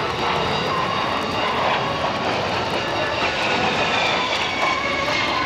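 Jet noise of a Kawasaki C-1 military transport flying a low pass, its two JT8D turbofan engines running with a steady roar and a high whine that slowly falls in pitch in the second half.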